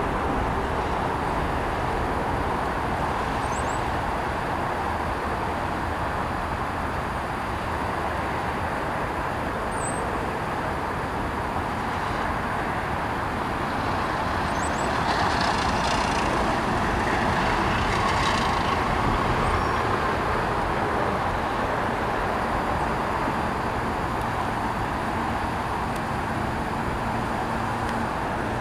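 Steady rumble and hiss of passing vehicles, a train or road traffic, growing somewhat louder about halfway through, with a few faint bird chirps.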